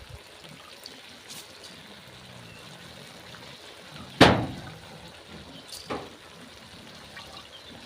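A sharp knock about four seconds in, fading quickly, then a lighter knock near six seconds, over a faint steady hiss.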